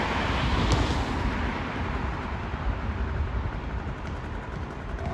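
Low wind rumble buffeting the microphone, while a Piaggio Zip scooter's swapped-in 125cc Runner engine dies away into the distance within about the first second. A single sharp click about 0.7 s in.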